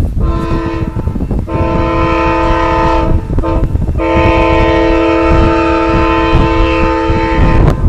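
Approaching train's horn sounding a chord of several steady tones in three blasts: a short one, then two long ones, the last held about four seconds.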